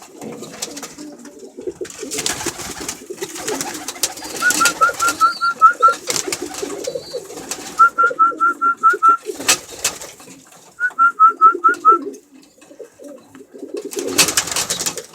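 Pigeons cooing steadily, with loud flurries of wing flapping near the start, in the middle and near the end. Three quick runs of short, high peeping notes cut in about halfway through.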